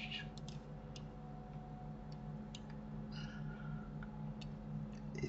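Scattered single clicks of a computer mouse and keyboard, irregularly spaced, over a steady low electrical hum.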